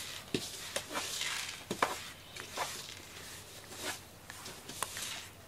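Rubber grooming brush stroking through a cat's fur: soft repeated rustling swipes with a few small clicks.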